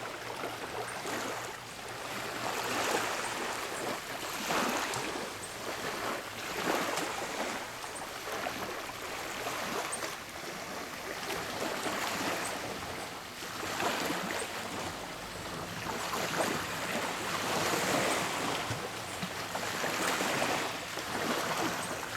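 Small waves lapping and washing on the shore, each swell of water noise rising and falling every couple of seconds.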